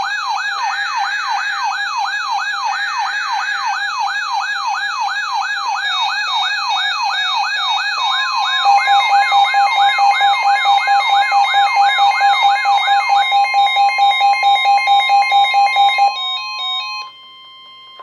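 Several NOAA weather radios sounding their alert alarms together for a Severe Thunderstorm Warning: an electronic siren tone sweeping up and down about twice a second, layered with rapid beeping from the other radios, over the warbling data bursts of the broadcast alert header in the first few seconds. About halfway a steady tone and a louder pulsing beep join in; most alarms cut off about two seconds before the end, leaving the steady tone alone.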